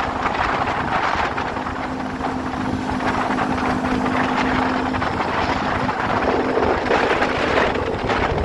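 Wind rushing over the microphone and road noise from a vehicle driving along at speed, with a steady engine hum through the middle that stops about seven seconds in.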